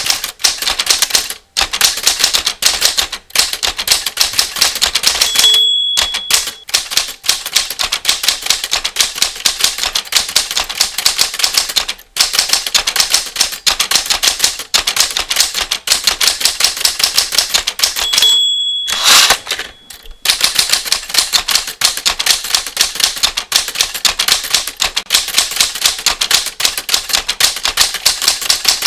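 Typewriter keys struck rapidly and continuously. The end-of-line bell dings about six seconds in and again about two-thirds of the way through, the second ding followed by the carriage being returned before typing resumes.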